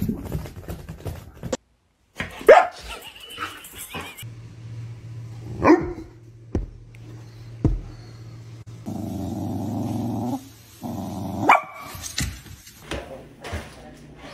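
A Doberman barking, three sharp barks a few seconds apart, with a low steady growl in between.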